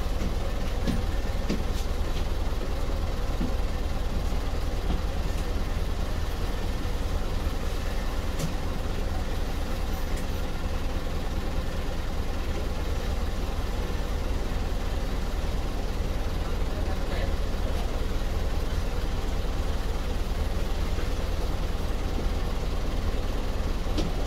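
Airport shuttle bus heard from inside, its engine and road noise making a steady low rumble.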